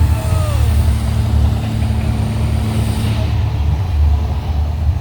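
Steady low rumble of a moving motor vehicle, with a brief falling whine about half a second in.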